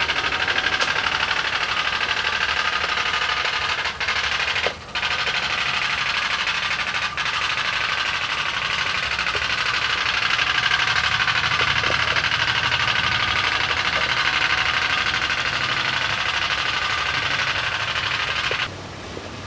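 Toy pop-pop boat's PP4V steam engine running: a rapid, steady, buzzing putter from the engine as it drives the boat. The sound dips briefly twice about four to five seconds in and cuts off near the end.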